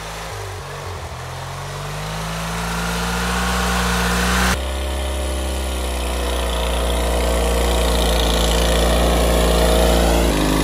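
Small lawn tractor engines working through deep snow. For the first four and a half seconds one engine climbs in pitch as it revs up under load, then the sound cuts abruptly to another tractor's engine running steadily and loudly close by.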